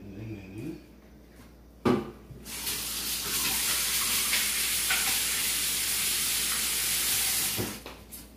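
A sharp knock, then a kitchen tap runs for about five seconds, water hissing steadily into a stainless-steel sink, and is shut off near the end.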